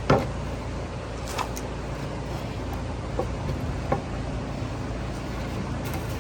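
Nailing a board into a deck frame: one sharp knock at the start, then a few faint taps, over a steady low background rumble.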